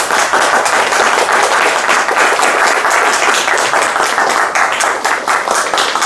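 Audience applauding: many hands clapping in a dense, even clatter that thins toward more separate claps near the end.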